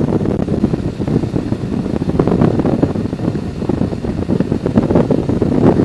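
Wind buffeting the microphone over the Harley-Davidson Electra Glide's V-twin engine running at road speed on the highway.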